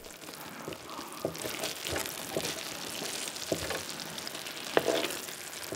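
Dakgalbi sauce, rice and kimchi sizzling on a hot griddle pan, with soft scrapes and small taps as a silicone spatula stirs the rice into the sauce. One sharper tap comes about five seconds in.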